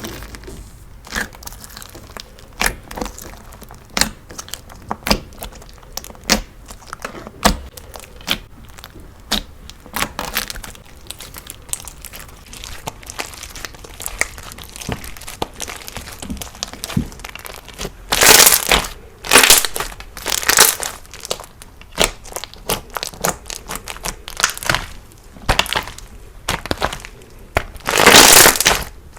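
Thick crunch slime being pressed and squeezed by hand, giving a string of sharp crackling pops. Several louder crunching squeezes come about two-thirds of the way in and again near the end.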